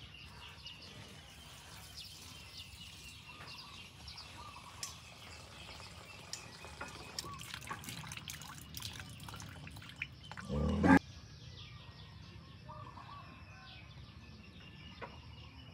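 Farmyard ambience around cattle: many small scattered wet clicks and drips, faint birdsong and a thin steady high whine, with one short, loud, low sound about ten and a half seconds in.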